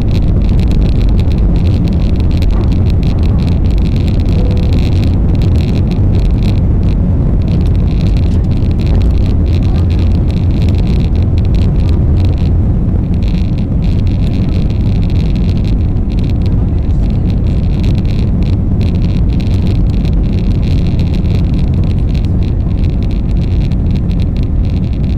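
Steady, loud rumble of engine and airflow heard inside the cabin of an Airbus A321-200 airliner, unchanging throughout.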